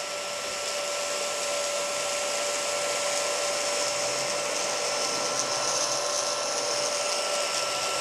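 Homeika P10 cordless stick vacuum running steadily with its powered floor head, a rush of air under a constant high whine, growing a little louder over the first few seconds.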